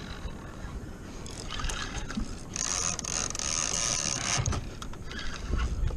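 Spinning reel's drag buzzing steadily for about two seconds as line is pulled off by a hooked fish, over the low rumble of water and wind around a kayak. There are a few low knocks near the end.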